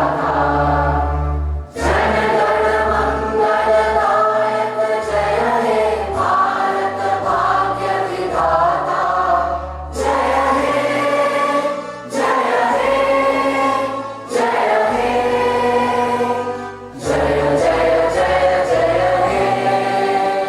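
A choir singing, in phrases separated by short breaks, over sustained low notes.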